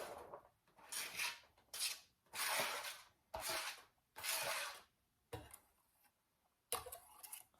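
Diced onion being scraped into a crock pot: a series of short rasping scrapes, roughly one a second, about seven in all.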